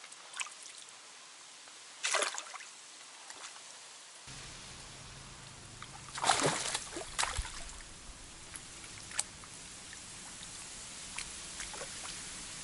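Water splashing and sloshing as a hooked ide thrashes at the surface and is drawn into a landing net. There are two louder splashes, about two seconds in and about six seconds in, with a few smaller ones after.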